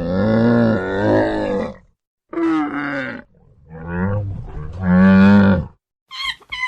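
A large animal calling three times, long low-pitched calls, the first and last the longest; short high squeaks start near the end.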